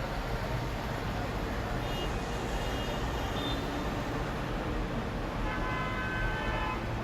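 Steady road traffic noise from vehicles, with car horns sounding twice, a weaker honk a couple of seconds in and a longer, stronger one near the end.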